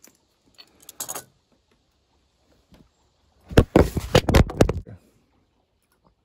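A camera falling over and clattering on wooden boards: a loud run of knocks and scrapes for about a second and a half, starting a little past the middle, after a light click about a second in.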